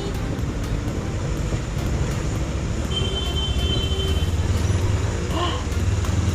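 Kawasaki Ninja 300 parallel-twin engine running under a steady rush of wind and road noise as the bike rides on; a low engine hum grows stronger about halfway through.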